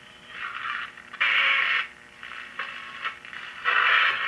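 Radio sound from the small speaker of a homemade radio, thin and tinny, loud in patches and fading in between.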